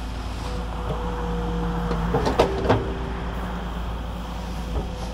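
Cat 310 excavator working, its diesel engine running steadily under a hydraulic whine whose pitch shifts as the bucket moves. A few sharp metal clanks come a little over two seconds in.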